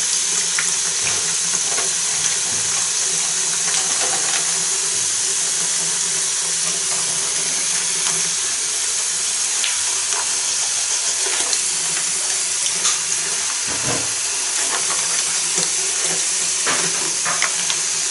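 Bathroom faucet running steadily into a washbasin holding standing water: an even hiss of splashing water, with a few light knocks and splashes as hands work in the water.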